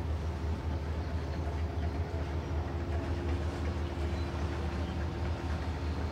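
A steady low mechanical drone with a constant hum, like a machine or engine running at an even speed.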